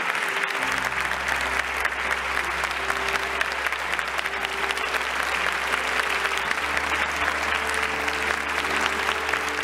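Wedding guests applauding steadily as the newlyweds walk out, with recessional music underneath whose held bass notes come in about half a second in.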